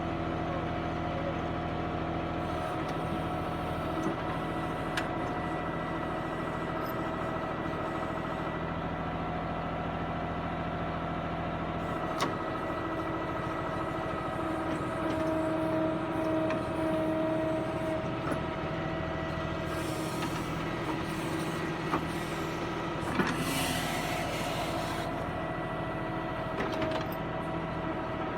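Diesel tractor engine running steadily, working a backhoe loader attachment, its pitch rising slightly a little past the middle. A few sharp knocks and a brief hiss come about two-thirds of the way through.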